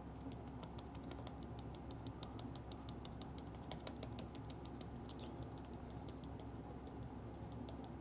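Quick run of light clicks and taps, like typing, about five or six a second, thinning out after about five seconds, over a steady low room hum.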